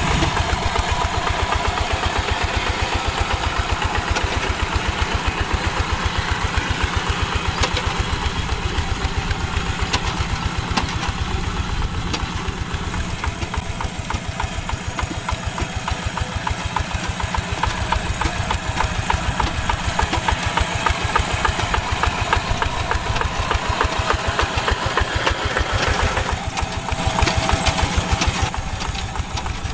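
Horizontal single-cylinder diesel engine of a two-wheel hand tractor chugging steadily with a rapid, even beat while ploughing.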